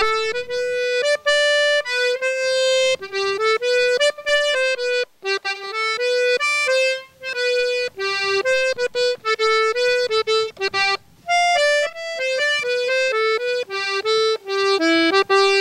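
Music: a solo accordion playing a quick melody one note at a time, with short breaks between phrases and no drums or bass underneath.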